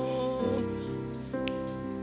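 Electronic keyboard playing sustained chords, the chord changing twice.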